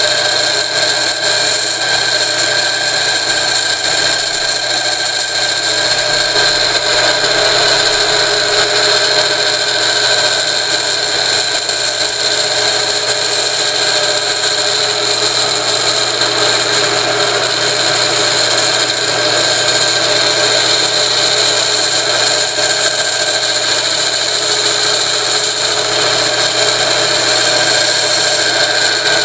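Motor turning a belt-driven shaft and rotor at a steady speed, a continuous whine, while a hand-held drill bit scrapes against the spinning iron-and-aluminium part, turning it down on an improvised lathe.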